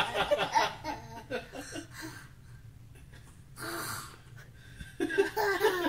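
A toddler imitating a snore: one noisy, snorting breath a little past the middle, with bits of voice before it and again near the end.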